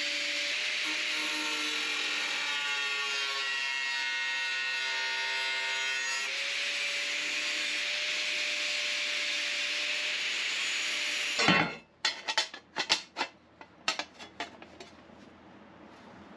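A power tool working on steel plate, a steady grinding noise with shifting whining tones. It stops suddenly a little over eleven seconds in, followed by a run of sharp metallic knocks that die away.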